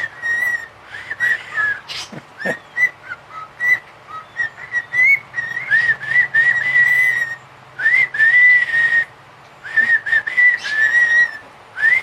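Pet cockatiel whistling: a run of short whistled notes around one pitch, many with quick upward or downward slides, with brief pauses between phrases.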